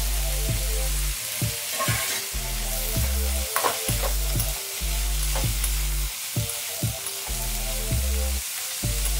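Chopped pumpkin sizzling as it fries with onion and tomato in a wok, with a few sharp clinks of a steel spatula against the pan. Background music with a deep, repeating bass line plays over it.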